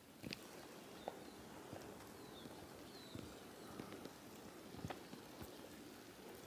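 Quiet outdoor ambience with scattered soft taps and light clicks, and a few faint, brief high chirps near the middle.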